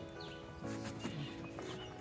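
Soft background music with held notes, with a few short bird chirps over it.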